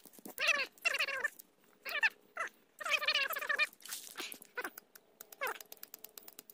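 Several drawn-out, wavering cries in the first half, followed by a run of light crackles and snaps of dry twigs and leaves being handled.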